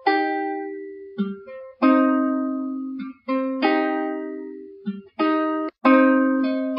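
Music: a plucked string instrument playing a gentle melody of chords, each note struck and left to ring and fade, about two plucks a second with short gaps between phrases.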